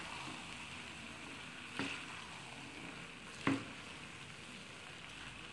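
A spatula stirring and tossing shredded cabbage and macaroni in a hot wok, with a soft steady sizzle and two knocks of the spatula against the pan, about two and three and a half seconds in.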